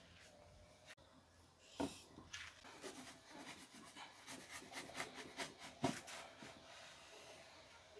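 Wooden pizza board knocking against a ceramic kamado grill and scraping as a raw pizza is slid off it onto the pizza stone: a knock about two seconds in, a run of small scrapes and clicks, and another knock near six seconds.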